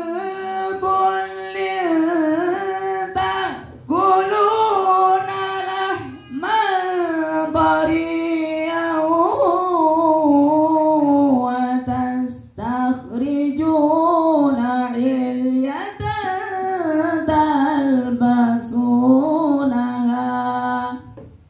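A young man's solo voice singing long, ornamented phrases into a microphone, without accompaniment, pausing briefly for breath between phrases; the voice comes through a small amplifier and loudspeaker.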